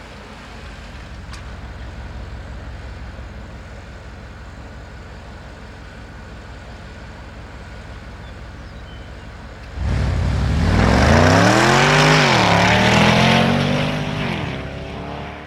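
Porsche Panamera Turbo's twin-turbo V8 running low and steady. About ten seconds in it suddenly gets much louder and climbs in pitch, dips once, climbs again, then winds down and fades.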